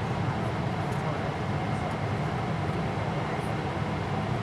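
Steady cabin noise of a Boeing 777-300ER heard from an economy window seat: the even rumble of the GE90 engines and the airflow past the fuselage.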